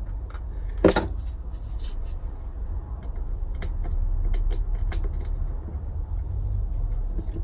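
Small metal bolts and hand tools being handled on a workbench during turbocharger reassembly: scattered light clicks and clinks, one sharper click about a second in and a cluster of them midway, over a steady low hum.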